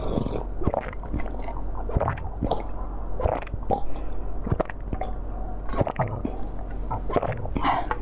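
Biting and crunching into a block of frozen basil-seed ice: irregular sharp cracks, several a second, with wet mouth sounds between them.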